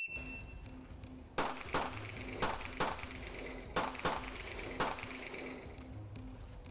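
A shot timer's start beep, then about seven pistol shots fired over roughly three and a half seconds, some in quick pairs.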